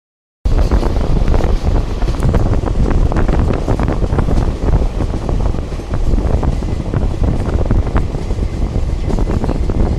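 Express train running at speed, heard from an open coach door: loud wind buffeting the microphone over the rumble of the wheels on the track, with irregular clicks and clatter from the wheels. The sound cuts in abruptly about half a second in.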